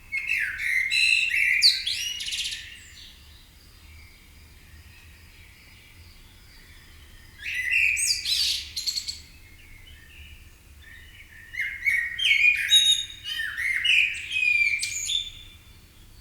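Birds singing in a dawn chorus: loud, warbling song phrases of sliding whistles and trills come in three bouts, near the start, around the middle and in the last few seconds, with softer chirping between them.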